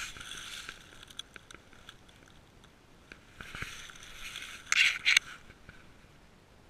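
Dry grass, twigs and fallen leaves scraping and crackling against a cat-mounted GoPro as the cat moves through brush, with two louder scrapes close together about five seconds in.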